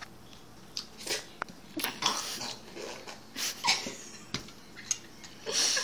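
Someone eating Jell-O from a bowl with a metal spoon: short breathy sucking and slurping noises, with a couple of sharp clicks of the spoon against the bowl.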